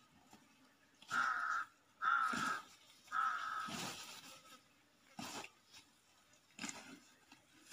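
A crow cawing three times, harsh calls about a second apart, near the start. Later come a few brief rough scuffing and tearing noises from Komodo dragons feeding on a carcass.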